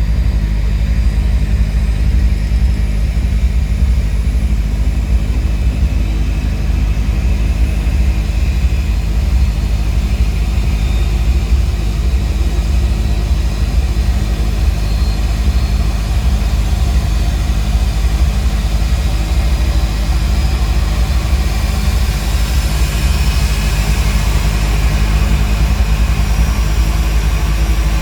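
Heavy engine running steadily: a loud low rumble with a few steady hum tones, and a broad hiss that grows louder in the last few seconds.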